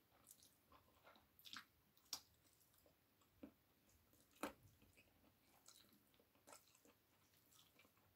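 Faint eating sounds: chewing and soft mouth smacks, with small clicks from fingers picking chicken wing adobo meat off a plate. A few clicks are sharper, the loudest about two and four and a half seconds in.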